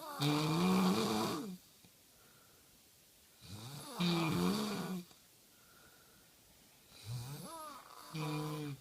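Loud snoring, with a tone that bends up and down in each snore. There are three snores, about one every three to four seconds; the last one comes in two parts near the end.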